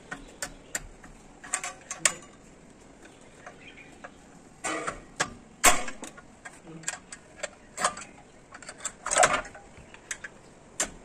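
Irregular light metallic clicks and taps of hand tools on heavy-vehicle drum-brake shoes and hardware, with a few louder knocks and scrapes about five and nine seconds in.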